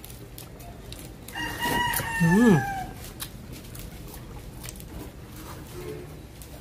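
A rooster crowing once: a single call of about a second and a half, held on one pitch and dropping at the end.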